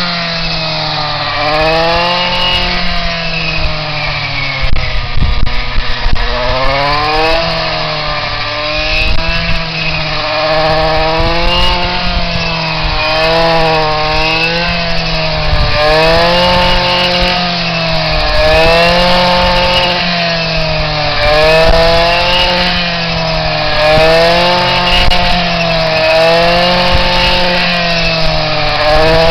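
Handheld engine-driven crop cutter (brush-cutter type) running hard while cutting standing grain stalks. The engine pitch sags and recovers in a regular cycle about every second and a half as the blade is swung through the crop.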